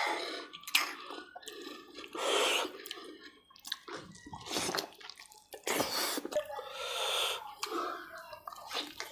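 Close-up wet chewing and squelching as mutton in thick curry gravy is eaten by hand, with irregular smacks and clicks from the mouth.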